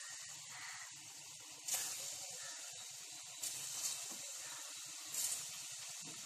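Dough pieces deep-frying in hot oil in an aluminium kadai: a steady sizzling hiss, with brief louder surges about every second and a half.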